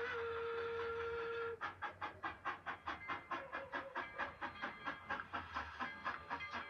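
Denver & Rio Grande Western No. 463, a K-27 steam locomotive, holds a chord of steady whistle tones that cuts off about a second and a half in. Its rapid, even exhaust chuffs then follow at about four beats a second as it passes close by.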